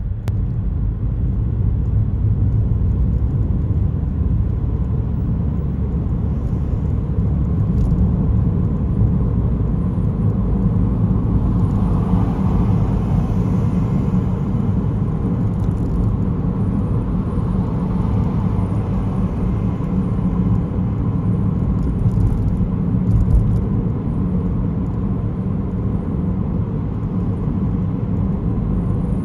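Steady low rumble of road and engine noise from a moving car, heard from inside the cabin, with the tyre hiss swelling briefly about twelve seconds in.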